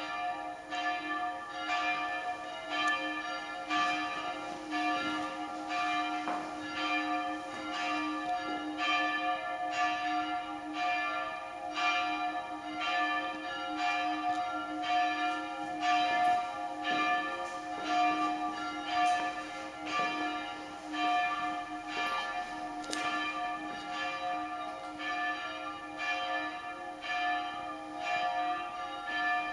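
Church bells ringing, a regular run of strikes at about one to two a second, the bells' tones overlapping and sustaining into a continuous ring.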